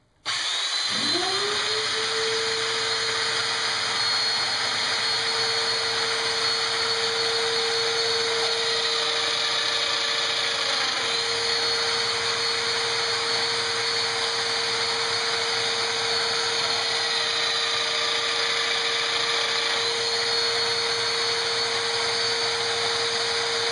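Festool Domino DF 500 joiner starting up and running steadily while plunge-cutting slots for 6 mm dominoes in a wooden rail, its dust extractor drawing through the attached hose. The motor spins up quickly to a steady whine that holds at an even level.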